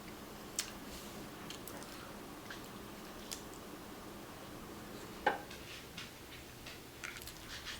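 Snow crab being shelled and eaten close to the microphone: faint, scattered clicks and small cracks of crab shell along with chewing, with one sharper click about five seconds in and a cluster of small ones near the end.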